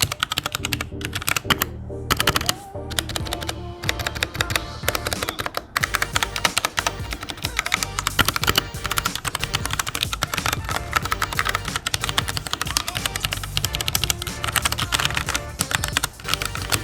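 Continuous fast typing on a Royal Kludge RK61 60% mechanical keyboard with tactile Huano brown switches, a dense run of keystroke clicks, its stabilizers judged by the typist to be factory-lubed. Background music plays underneath.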